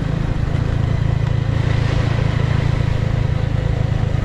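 Hero Splendor Plus's single-cylinder engine running steadily as the motorcycle rides on, with a rough rubbing noise from the front wheel: snow has packed and frozen inside the front mudguard and drags on the tyre.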